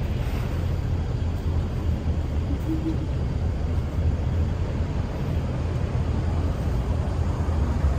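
Steady low rumble of traffic, with idling diesel bus engines close by.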